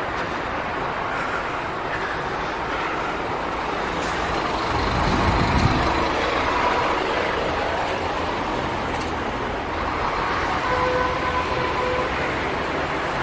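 Street traffic noise heard while walking along a city pavement: a heavy vehicle passes with a low rumble about five seconds in, and two short steady tones, like a horn, sound near the end.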